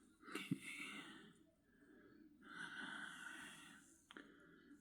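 A person's two soft, breathy exhalations, the first just after the start and the second around the middle, with a faint click or two.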